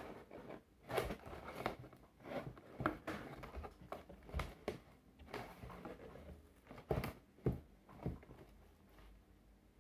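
Scissors snipping and a cardboard-and-plastic toy box being handled: irregular clicks, scrapes and crinkles, with sharper snips about a second in, around three seconds, and twice around seven seconds.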